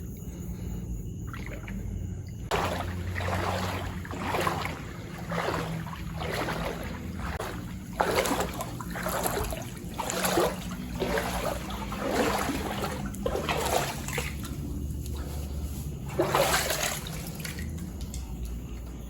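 Wading through knee-deep floodwater, with a splash and slosh at each stride, about one a second, starting a few seconds in.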